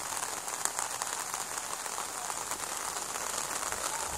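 Steady rain falling, a dense hiss of many small drop ticks.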